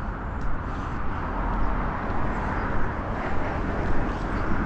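Steady outdoor street noise: the even rush of road traffic, with a low rumble underneath.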